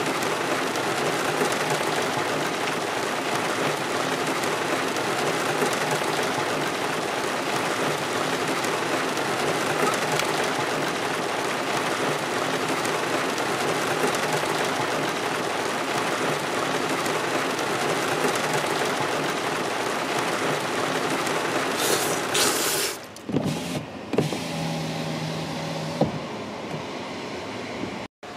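Heavy rain falling on a car's roof, heard from inside the car: a steady, dense hiss. About 23 seconds in it drops away to quieter sound with a low steady hum.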